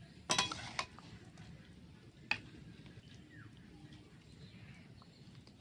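A metal spoon clinks and scrapes against a metal kadai and a ceramic plate as soybean chunk and potato curry is served. There is a quick cluster of clinks about half a second in, then a single tap a little after two seconds and another at the very end.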